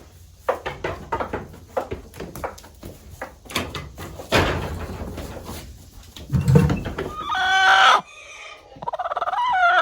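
A hen calling: two drawn-out calls with wavering pitch near the end, after several seconds of scattered knocks and rustling.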